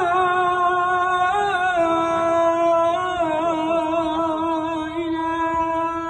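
A man's voice calling the adhan (Islamic call to prayer), drawing out one phrase as a long, ornamented sung note. The pitch steps down slightly about two seconds in and again about three seconds in, then holds steady.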